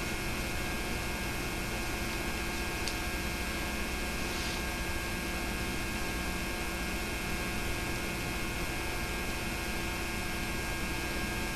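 Steady electrical hum with a layer of hiss from the old film-to-videotape transfer. The film itself carries no sound.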